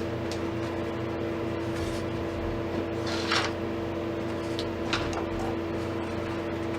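A steady background hum with one constant tone, and a few brief rustles and clicks a little past the middle as accessory parts are handled.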